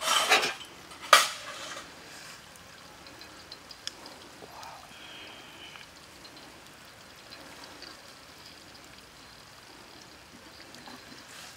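Metal tongs clattering against a steel wok while skewered pork fries in oil: two loud, sharp bursts within the first second and a half, then a faint sizzle with a few small clicks.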